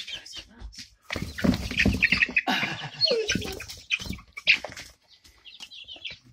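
Month-old barred chickens peeping. About a second in, the flock breaks into a loud scramble of wings and feet in the straw, with squawks over it for several seconds, then settles back to scattered peeps near the end.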